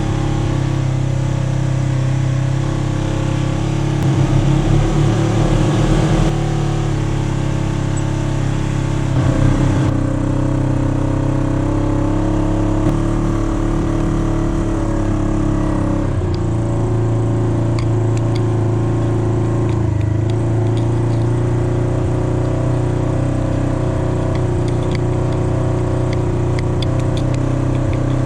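Polaris RZR 900 side-by-side engine running steadily under way, picking up briefly twice, about four and nine seconds in.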